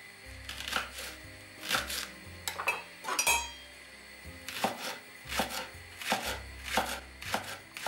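Kitchen knife slicing a leek into rings on a wooden cutting board: a sharp knock of the blade on the board with each cut, about one to two a second, with a short pause midway.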